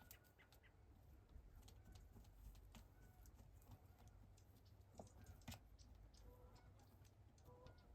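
Near silence, with faint scattered clicks and a few soft chicken clucks, most of them near the end.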